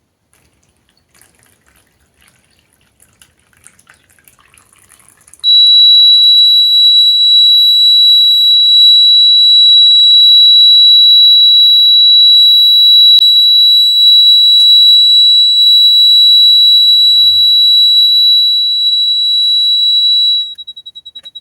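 Piezo buzzer of a homemade disaster-alarm model sounding a loud, steady, high-pitched tone that starts abruptly about five seconds in, after faint noise, and stutters and stops near the end.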